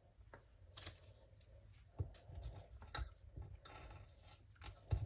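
Faint, scattered small clicks and taps with short stretches of light scraping and rustling, from handling the peeled tape and a tool at the edge of a resin-coated board.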